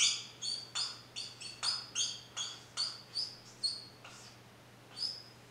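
Marker squeaking on a whiteboard while writing: a quick run of about a dozen short, high squeaks over roughly four seconds, and one more squeak near the end.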